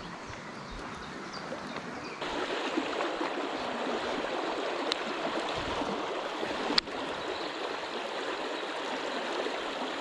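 Small river flowing over stones, a steady rush of water that gets suddenly louder about two seconds in, with one sharp click near the end.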